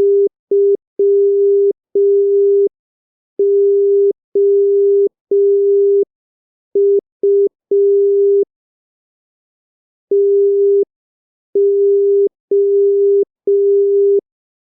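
Morse code practice tone: a single steady beep keyed on and off in short dits and long dahs at a slow 5 words per minute, with a pause of about a second and a half near the middle between words.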